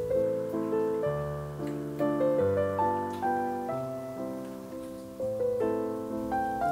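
Background piano music: a melody of struck notes, each fading away, over low bass notes.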